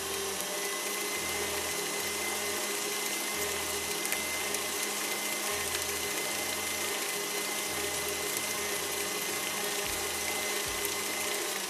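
Electric mixer running steadily with a constant motor whine, creaming ghee and icing sugar together.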